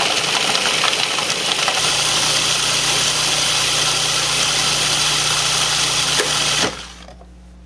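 Food processor running, its blade grinding shortbread cookies and toasted pecans into fine crumbs with a steady motor hum under the rattle of the crumbs; it cuts off suddenly about a second before the end.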